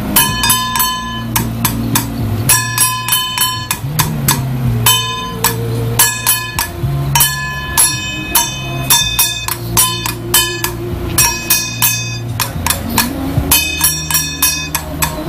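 Small hand gong struck rapidly with a wooden stick: quick clusters of sharp, ringing metallic strikes, several a second, with short breaks between, keeping the beat for a Taiwanese temple troupe's dance. A low steady hum runs underneath.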